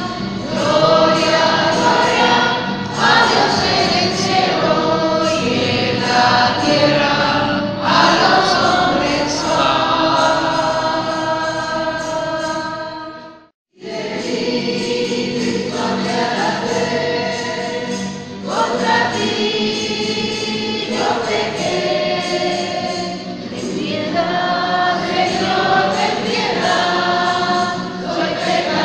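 A choir singing a hymn. About halfway through, the music cuts off abruptly for a moment, then the singing starts again.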